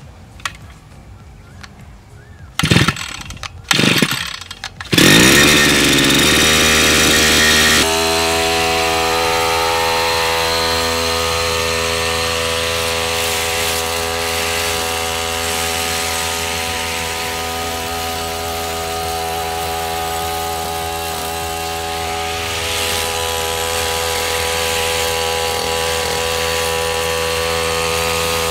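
A DBL BD-328 brush cutter's 30.5cc single-cylinder two-stroke engine being started: two short bursts of sound, then it catches about five seconds in and runs fast, its pitch settling. From about eight seconds in it runs steadily at working speed while trimming grass.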